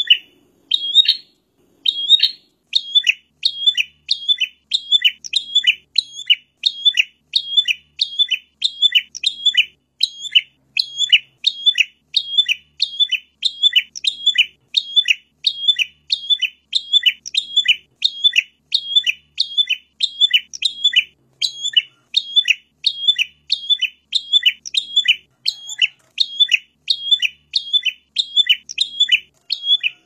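Prenjak, a small prinia-type songbird, calling over and over: sharp, high chirps at about two a second, in a steady, unbroken run.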